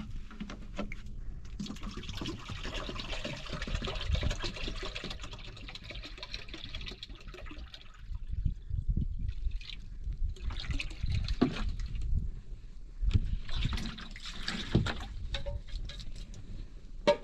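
Liquid poured from a plastic jug into a cooking pot over a wood fire: a steady pour lasting several seconds that stops about halfway through, followed by two shorter bursts of sound.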